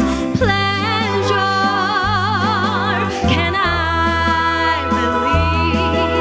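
A singer holding long notes with wide vibrato, backed by a band with a bass line that moves in steps: live 1960s-style musical theatre performance.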